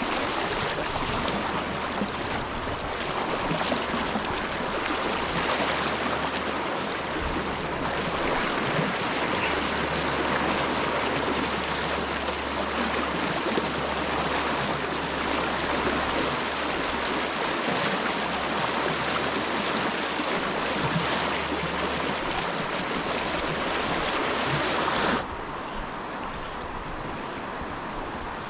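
Fast-flowing river water rushing steadily. About 25 seconds in it drops suddenly to a quieter rush.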